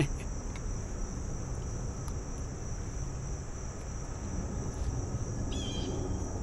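Insects chirring steadily on one high continuous note over a low background rumble. Right at the start, one sharp clink of a metal spoon against a ceramic soup bowl.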